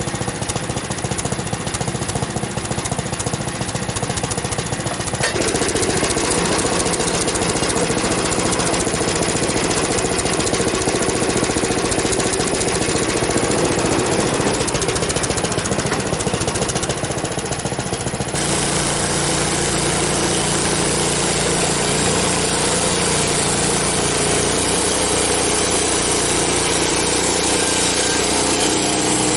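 Frontier OS23 portable bandsaw mill running steadily, engine and band blade working through a cottonwood log; the sound changes about five seconds in and again around eighteen seconds in. The owner thinks something on the mill is rubbing too much and needs greasing.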